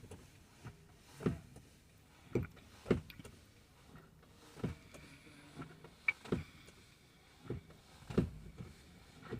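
Light metallic clinks and knocks, about eight of them spaced irregularly, from a new timing chain and its guides being fitted by hand onto a diesel engine's sprockets.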